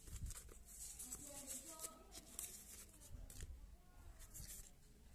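Quiet rustling and light clicks of paper and plastic packaging being handled and shifted on a tabletop.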